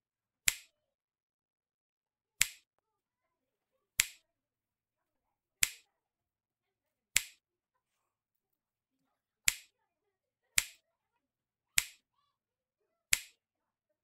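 Nine sharp snap-like clicks, spaced one to two seconds apart, with dead silence between them: an edited-in snap sound effect as each craft item pops into view.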